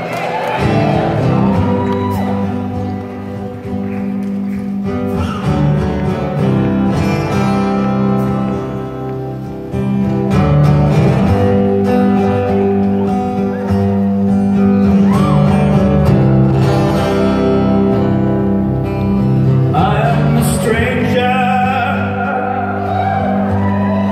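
Live band playing a slow song on guitars and keyboard, with a man singing at the start and again near the end.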